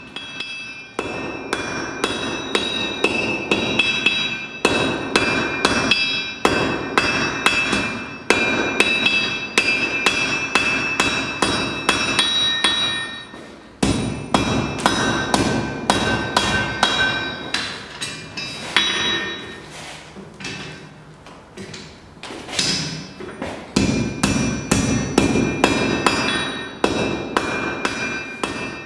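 Massive pneumatic forging hammer striking hot steel in a fast run of repeated blows, with a steady metallic ringing over the strokes. It eases off briefly past the middle, then picks up again.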